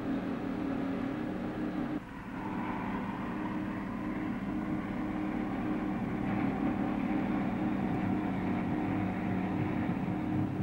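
Clark Michigan 675 wheel loader's diesel engine running steadily as the machine drives across the quarry floor. There is a brief dip in the sound about two seconds in, after which the same steady engine sound resumes.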